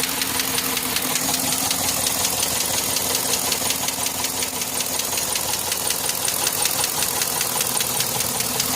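2013 Chevrolet Caprice PPV's L77 6.0L V8 running at a steady speed with a fast, even tapping clack from the valvetrain, which the owner takes for a failed DOD/AFM lifter.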